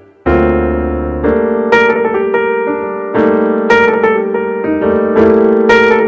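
Background piano music: a chord struck about a quarter second in, then a melody of single notes every half second or so, each ringing on over held lower notes.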